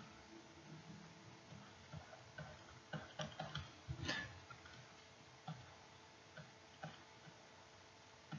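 Faint, irregular taps and clicks of a pen stylus on a writing surface as letters and symbols are written by hand, a little denser about three to four seconds in.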